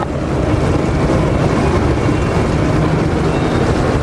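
Loud, steady rumbling background noise with no distinct events.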